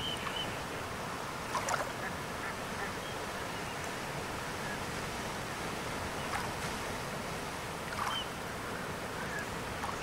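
Surf washing onto a sandy beach in a steady rush, with seabirds giving short calls several times over it, loudest about a second and a half in and again around six and eight seconds in.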